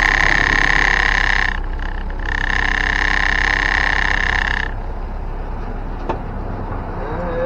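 Cabin noise of a 1961 Land Rover Series 2 on the move: a loud, steady rattling buzz over the engine and road rumble that drops out briefly about a second and a half in, comes back, and stops a little over halfway through, leaving the lower drive rumble and a single click.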